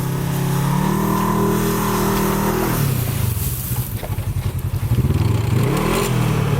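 Polaris RZR XP 1000's twin-cylinder engine revving under load as the buggy is driven forward in swamp mud. The revs climb about a second in and hold, drop near the middle to a low, uneven chugging, then rise again near the end.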